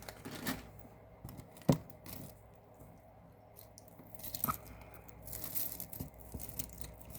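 Costume jewelry being handled: faux pearl beads and small metal pieces clicking against each other, with some rustling, a couple of sharper clicks standing out.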